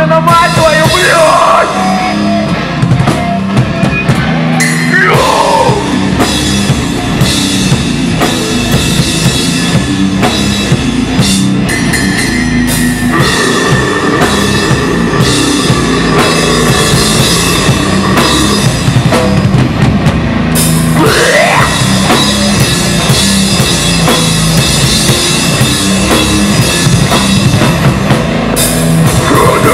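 Deathcore band playing live and loud: a drum kit with heavy bass drum under guitars.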